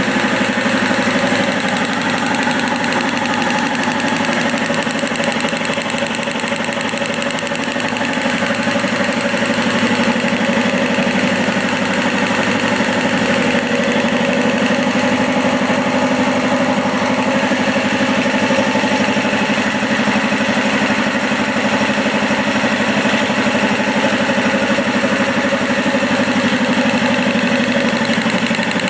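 Industrial air compressor running steadily, with a dense mechanical hum that eases slightly about seven seconds in and then holds steady.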